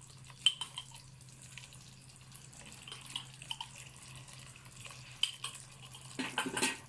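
Blended onion and ginger-garlic paste frying gently in oil and butter in a pan, a soft sizzle, with a few scattered spoon clicks and a louder cluster of spoon knocks and scrapes against the pan near the end. A steady low hum runs underneath.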